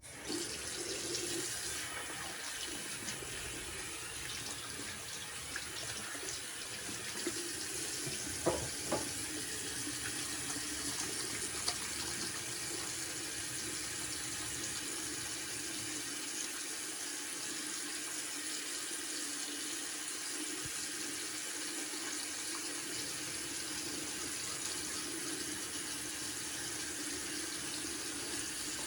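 Sink faucet running steadily into a freshly snaked sink drain, the flow-through test of the unclogged drain. A few light knocks about nine and twelve seconds in.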